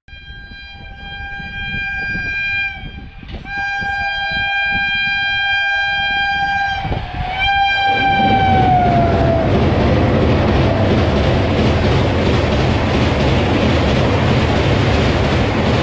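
A WAP-7 electric locomotive sounds its horn in three long blasts, the third dropping in pitch as the engine passes. Its train of LHB coaches then follows across the steel girder bridge with a loud, steady rumble of wheels on rails.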